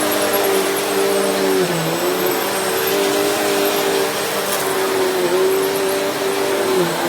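Vacuum cleaner running over carpet: a steady motor hum over a broad rush of air. The hum's pitch dips briefly about three times.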